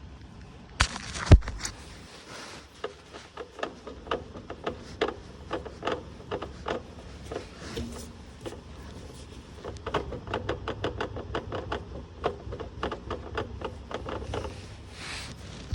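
Mini F56 JCW drivetrain clunking over a speed bump: two hard, heavy clunks about a second in, then a long run of lighter irregular knocks and clicks over a low rumble. The owner suspects the Quaife limited-slip differential setup.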